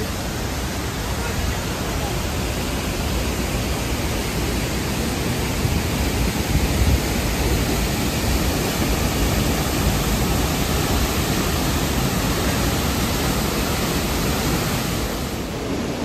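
A waterfall in full monsoon flow: a loud, steady, unbroken rush of falling water.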